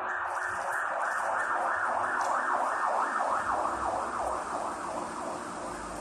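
A siren sounding in fast repeated rising sweeps, about three a second, loudest midway and weakening near the end.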